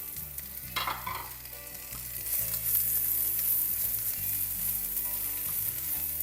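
Onions and pepper frying in olive oil in a pan, sizzling steadily.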